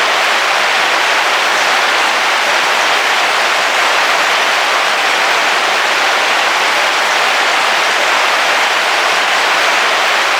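Heavy rain falling steadily on a car's roof, heard from inside the car: a dense, even hiss with no single drops or thunder standing out.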